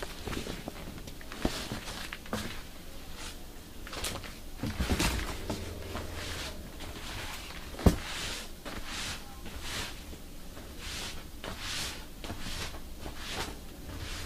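Leather hides being handled: repeated soft rustles, about one or two a second, with a single sharp knock about eight seconds in.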